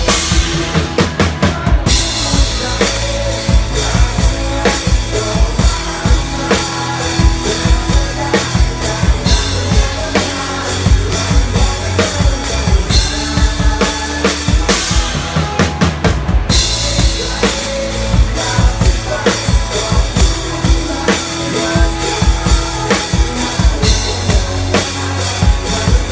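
Drum kit played live with sticks: a driving kick-and-snare beat with cymbals ringing over it. Twice, near the start and about halfway through, the cymbals stop for a couple of seconds while the drums carry on.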